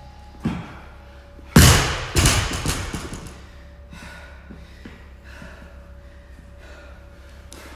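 A loaded barbell with rubber bumper plates, 35 kg, dropped onto a rubber gym floor about a second and a half in: one heavy thud, then a second hit and a few smaller bounces dying away.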